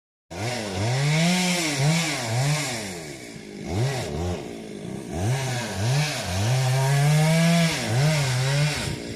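Two-stroke chainsaw engine revving up and down in repeated throttle bursts, then held at high revs for a couple of seconds while cutting into the tree.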